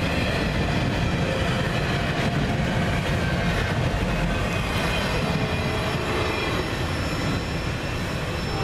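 Freight train rolling past: a steady, loud rumble and rattle of railcar wheels on the rails, with faint thin squeals from the wheels.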